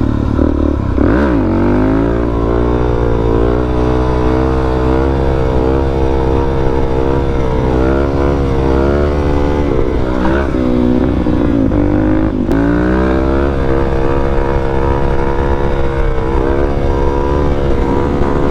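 Motorcycle engine running while riding, its pitch wavering; twice, about a second in and again about two-thirds of the way through, the pitch drops and then climbs back up.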